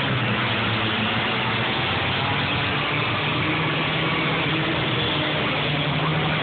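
Several compact demolition-derby cars' engines running together, revving and shifting pitch as they accelerate around a dirt figure-8 track, in a steady dense engine noise.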